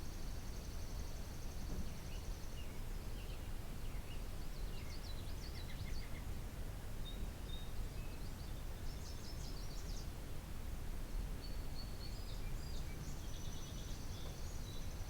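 Several songbirds singing and calling, with high trills, chirps and short whistled notes, over a steady low rumble of background noise.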